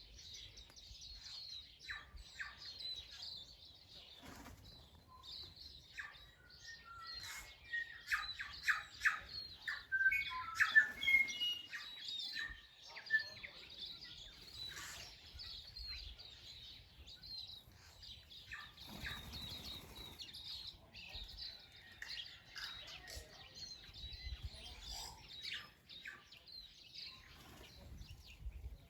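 Mixed chorus of wild garden birds, with many small birds chirping continuously. A nearer bird sings a louder run of rapid notes from about seven to twelve seconds in, and there is a brief rush of noise a little before twenty seconds.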